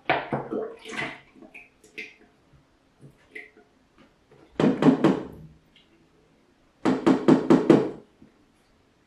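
A carton of cream being emptied into a stainless steel stand-mixer bowl. Short handling sounds come first, then two bursts of quick knocks, one about halfway through and one near the end, as the carton is worked over the bowl.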